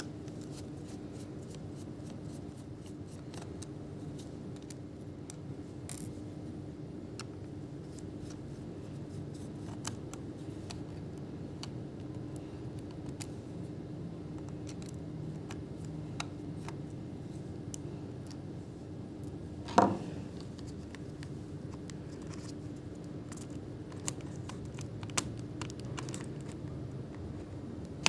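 Faint scattered clicks and scrapes of small objects being handled, over a steady low hum. One sharper, louder click comes about twenty seconds in.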